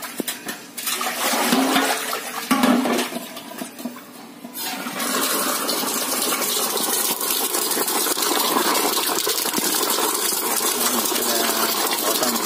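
Water running steadily from a tap into a basin, starting about five seconds in; before it, a few light knocks from handling the butchered softshell turtle.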